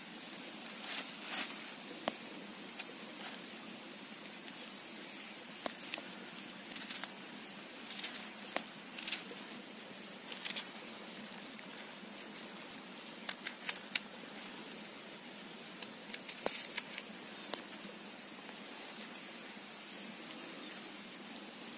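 Small knife slicing a red onion held in the hand, with irregular light clicks and rustles of a plastic bag, over a steady hiss.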